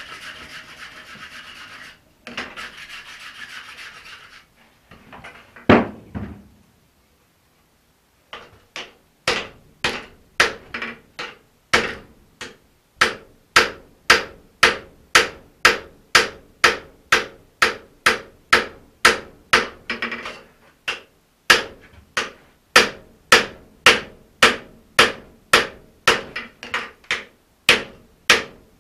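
Hand hammer striking a hot axe head on the anvil, steady blows about two a second, each with a short ringing note from the anvil. The first few seconds hold a scratchy rubbing noise and a single heavy blow before the steady hammering begins.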